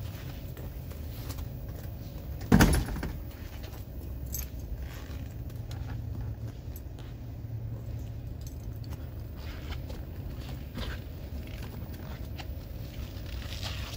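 Handling noise from a handheld camera: faint clicks and rustles over a low rumble, with one loud thump about two and a half seconds in.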